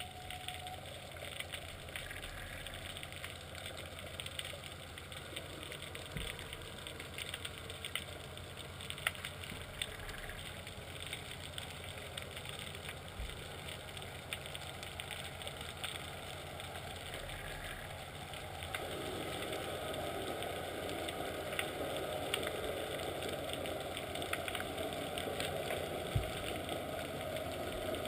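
A boat's engine and propeller running, heard underwater through a camera submerged in the sea: a steady low rhythmic throb with faint ticks, growing louder about two-thirds of the way through as the boat comes nearer.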